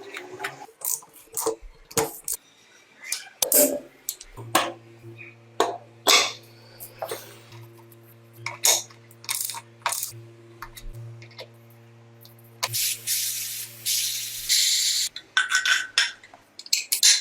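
Repeated clinks and knocks of metal parts and tools being handled, over a steady hum that starts about four seconds in and stops about fourteen seconds in. A spell of hissing near the end lasts under two seconds.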